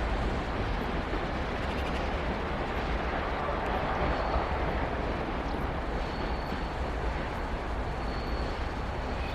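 Passenger train rolling past, a steady rumble and rush of wheels on rail with faint high squeals coming and going.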